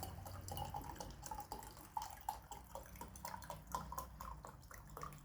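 Herbal drink dripping and trickling through a strainer into a glass: a run of small, irregular drips.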